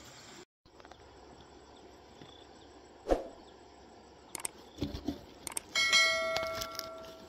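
A few sharp knocks, then one loud bell-like metallic ring, struck once and dying away over about a second and a half.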